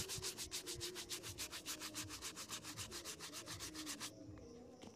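Bristle shoe brush scrubbing briskly back and forth over a leather shoe, in a fast, even rhythm of about eight strokes a second, stopping about four seconds in.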